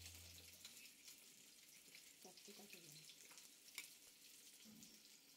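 Near silence: faint hiss with a few soft clicks, one a little stronger about four seconds in.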